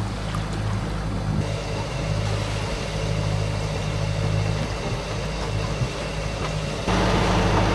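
Sailing yacht's inboard engine running steadily under way, a low hum under a wash of wind and water noise. The mix changes abruptly about a second and a half in and again near the end.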